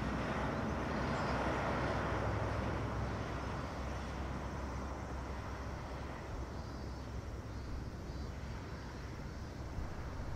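Distant, steady jet rumble of an Airbus A340-300's four CFM56 engines at takeoff power on its takeoff roll, slowly fading.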